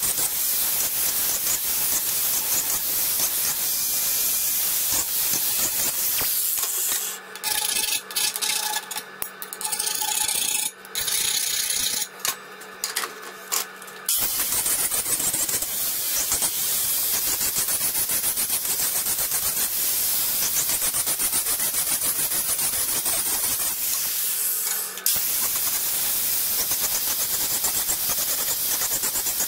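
Angle grinder grinding down the welds on a motorcycle exhaust pipe, a steady harsh rasp. The grinding drops away and comes back several times between about six and fourteen seconds in, and stops once briefly about twenty-four seconds in.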